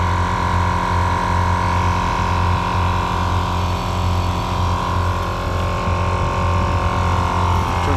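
An iker dual-cylinder 12-volt portable tire inflator running steadily under load as it pumps up a flat car tire. It makes a continuous motor-and-piston drone with a low uneven throb and a steady high whine.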